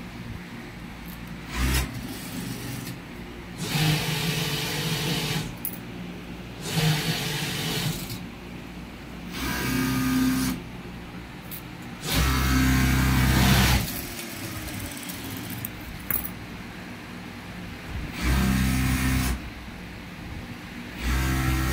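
Juki industrial sewing machine running in short bursts of one to two seconds, about seven times, with pauses between, as fabric is stitched.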